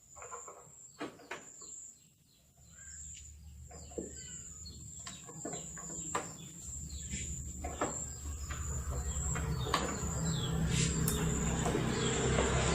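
Birds chirping over a steady high whine, with scattered sharp clicks and taps. A low motor-like rumble comes in a couple of seconds in and grows steadily louder toward the end.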